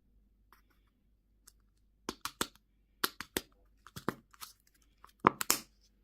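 Candy packaging being torn open, in short crackling rips that start about two seconds in and come in quick clusters, loudest near the end.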